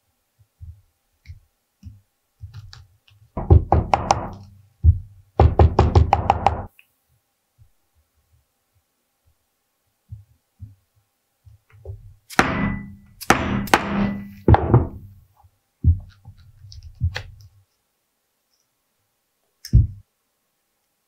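Mallet striking a multi-prong stitching chisel to punch stitch holes through vegetable-tanned leather: bursts of quick, sharp knocks with pauses between, and one last knock near the end.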